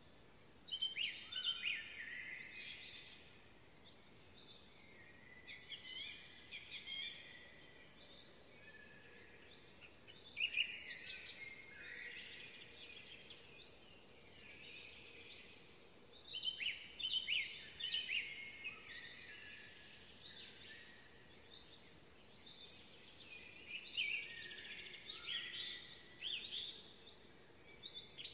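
A songbird singing from the woodland edge: short phrases of quick, varied notes lasting two to three seconds each. It repeats about five times with pauses of several seconds between, over faint outdoor background noise.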